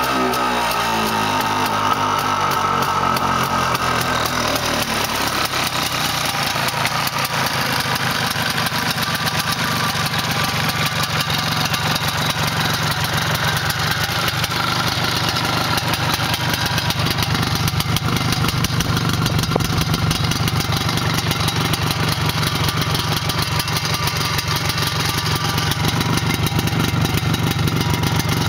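MZ ETZ 301's single-cylinder two-stroke engine idling: its revs fall back about a second in, then it runs at a steady idle with an even pulse.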